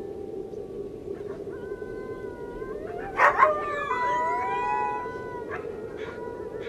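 Several wolves howling in long, overlapping held notes. About three seconds in comes a louder burst of short cries and rising howls, over a steady background hiss.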